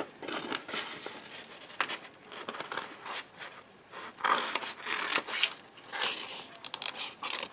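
Paper and sticky tape being handled: irregular rustling and crinkling with short tearing rasps.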